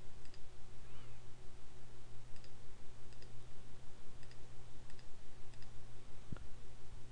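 Computer mouse clicking several times as folders are expanded, over a steady low hum, with a single low thump near the end.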